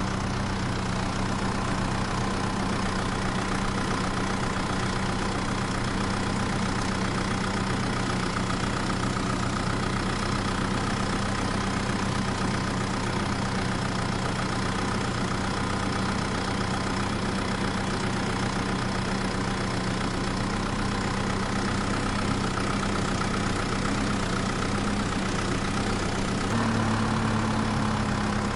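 An engine idling steadily. Near the end its pitch steps up slightly, then eases back down.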